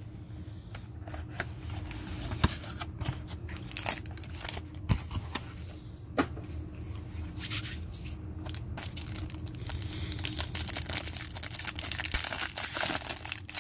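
Packaging being torn open and crinkled: a trading-card box's wrapping and the foil pack inside. It comes as a continuous run of small crackles and clicks.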